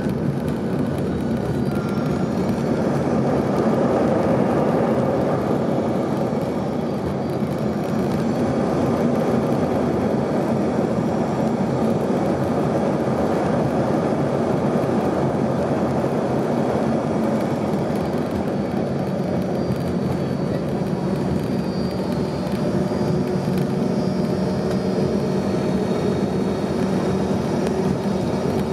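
Cabin noise inside an Embraer ERJ-135 regional jet rolling on the ground after landing: a steady rumble and rush from its Rolls-Royce AE3007 turbofans at low thrust, with faint high engine whine that grows clearer in the later part.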